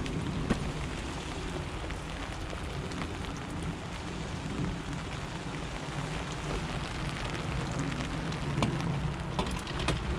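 Steady rain falling on a fishing umbrella, with a few sharp ticks near the end.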